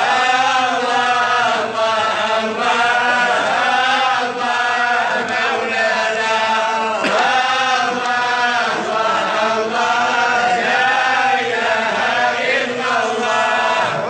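Chanted vocal music: a voice chanting long, wavering melodic lines without pause.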